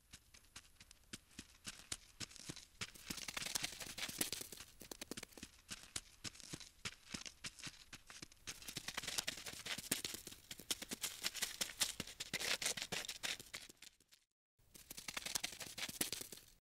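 Rapid, dry scratching clicks, a sound effect of a small insect scuttling over a hard surface. It swells and fades and cuts out briefly about two seconds before the end.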